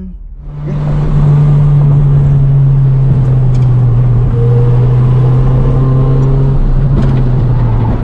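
Toyota Celica's four-cylinder engine running at steady, fairly high revs, heard loud from inside the cabin while driving, over a steady rush of road and wind noise.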